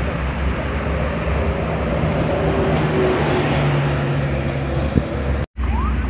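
Highway traffic noise as a coach bus approaches, its engine a steady low hum rising slightly in pitch. There is a single click about five seconds in, and then the sound cuts out for a moment at an edit.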